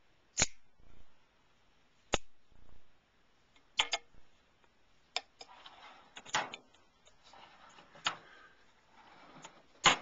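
Italian-style stiletto switchblade snapping open with a sharp metallic click, twice about two seconds apart, each followed by a softer knock. Several lighter clicks and knocks follow as knives and the metal tool-chest drawer are handled.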